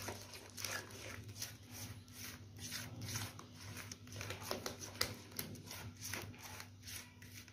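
Silicone spatula stirring and scraping a thin wet gram-flour and egg batter around a plastic bowl, a string of faint, uneven wet strokes several times a second.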